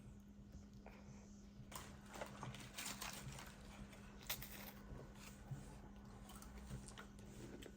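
Faint chewing of MRE wheat snack bread, with scattered small clicks and crackles, over a steady low hum.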